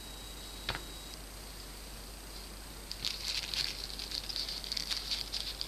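A single click, then from about halfway through a crackly rustling of packaging being handled as the accessories are taken out.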